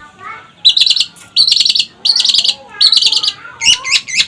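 Long-tailed shrike (cendet) singing loudly: four fast, trilled bursts of song about two-thirds of a second apart, then a quicker run of short, sharp chirps near the end, with fainter lower notes between them.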